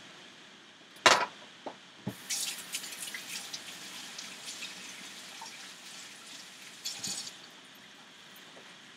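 Kitchen tap running while hands are rinsed under it, water splashing for about five seconds before it stops. A sharp click comes about a second in, before the water starts.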